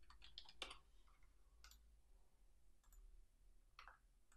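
Faint computer keyboard keystrokes: a quick run of taps in the first second, then a few single clicks spaced out.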